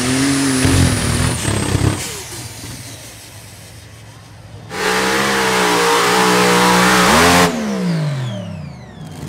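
Competition pulling-tractor engines running at full throttle under load, in two loud runs: one in the first two seconds, then another from about five seconds in. Around seven and a half seconds the throttle comes off and the engine's pitch falls away as it winds down.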